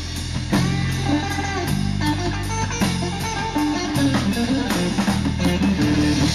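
Live blues-rock band: a Stratocaster-style electric guitar plays lead lines over bass guitar and a steady drum beat.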